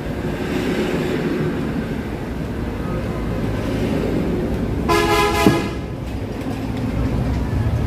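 A steady low rumble of road traffic, with a vehicle horn sounding once for about half a second, about five seconds in.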